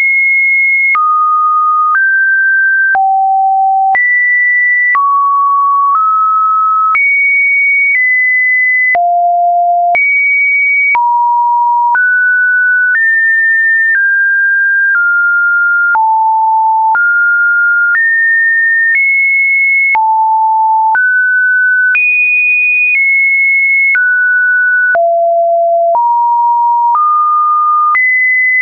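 Computer-generated sine-wave test tones, one a second, each a pure beep at a new random pitch, jumping up or down at every change with a slight click.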